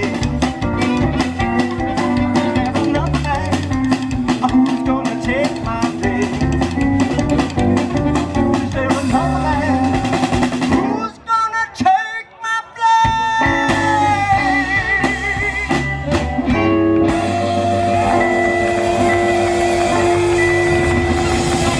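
Instrumental stretch of a band song with drum kit and guitar. About halfway through, the band drops out for a couple of seconds, leaving a few sliding guitar notes, then comes back in with long held notes.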